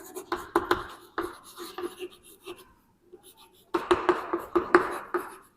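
Writing on a board: a run of quick scratching strokes that pauses for about a second midway, then picks up again.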